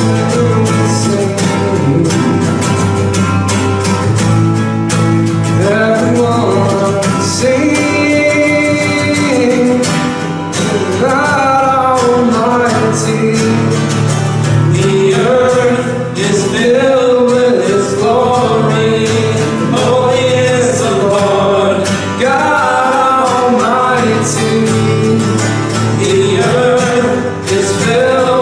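Worship music on acoustic guitar: steadily strummed chords with a melody line over them.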